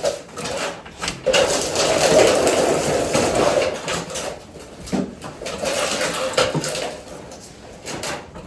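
Hand tools working on metal under a car: a stretch of rapid clicking and scraping, with a few separate knocks.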